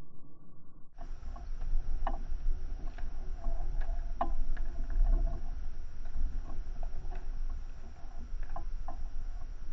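Nunchucks being swung, their chain and handles giving sharp clicks and clacks here and there, over a steady low rumble of wind on the microphone.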